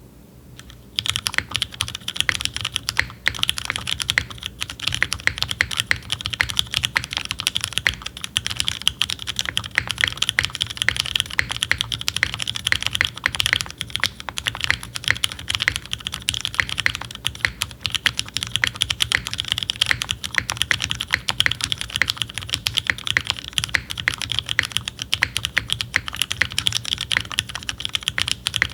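Continuous fast typing on a custom mechanical keyboard with vintage Cherry MX Black linear switches, lubed and fitted with heavy springs, under GMK doubleshot ABS keycaps on a full aluminum plate. The typing starts about a second in, with many keystrokes a second.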